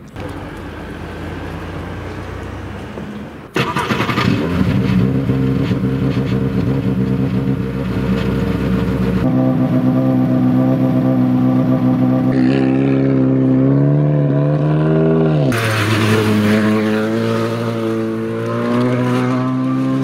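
Volkswagen Polo GTI R5 rally car's 1.6-litre turbocharged four-cylinder engine, heard loud from about three and a half seconds in, running at a steady idle with a short rise in revs after the middle.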